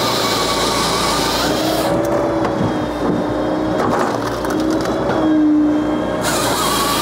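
Japa 395 firewood processor running off a tractor's PTO, working through ash logs: a steady machine drone with a hum that dips slightly in pitch and is loudest about five and a half seconds in.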